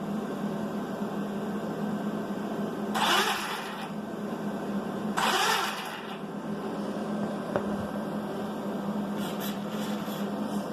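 Steady electric whir of the powered-on Traxxas Rustler VXL, most likely its ESC cooling fan running. Two short rushing bursts come about three seconds in and again about five seconds in.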